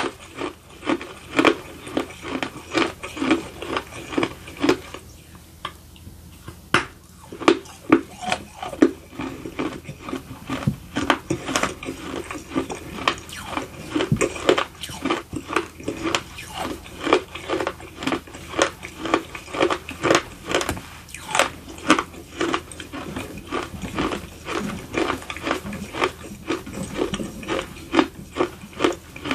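Close-up crunching and chewing of dry baked edible clay: a steady run of crisp crunches, about two a second, with a short lull about five seconds in.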